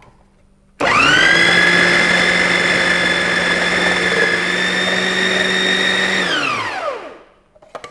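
Philips mixer grinder's 750-watt motor switched on, running the ChefPro jar's grating attachment to grate a banana: it starts suddenly about a second in, runs as a steady high whine for about five seconds, then is switched off and winds down with falling pitch. A couple of clicks near the end.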